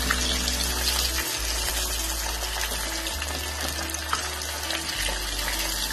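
Marinated fish pieces deep-frying in hot oil: a steady sizzling hiss with small crackles throughout.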